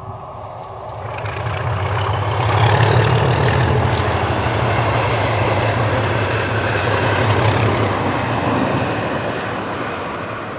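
Class 37 diesel-electric locomotive passing, its English Electric V12 engine running with a deep drone. It builds over about two seconds, stays loud for several seconds, then fades as it goes by.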